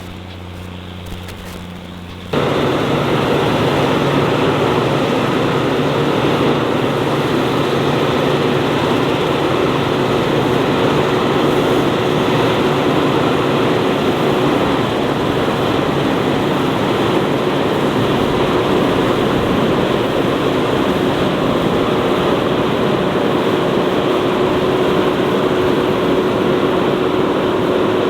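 Vehicle engine running steadily. A quieter, lower engine hum gives way abruptly about two seconds in to a much louder, dense running noise with a steady hum that holds.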